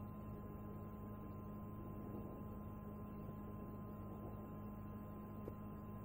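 Steady low electrical hum over faint background hiss, with one faint click about five and a half seconds in.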